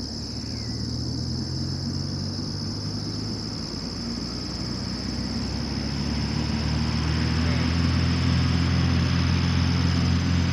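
Avid Flyer kit plane's engine and propeller heard from a distance, running steadily and then growing louder over the second half as power comes up for the takeoff roll.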